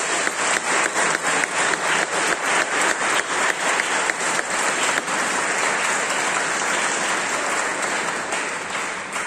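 Church congregation applauding, a steady mass of hand claps with a few near claps standing out sharply, thinning and fading near the end.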